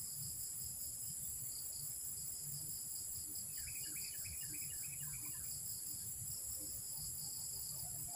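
Steady chorus of crickets and other insects, a high pulsing drone, over a low rumble. About halfway through comes a short run of about eight quick, high chirps.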